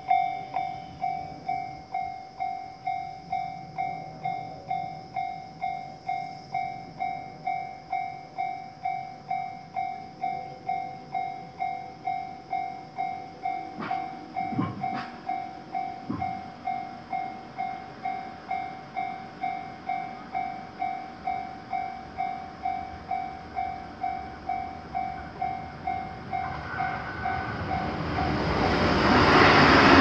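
Railroad crossing warning bell ringing in a steady rhythm of about two strokes a second. Near the end an electric commuter train approaches and passes the crossing, its running noise swelling until it drowns out the bell.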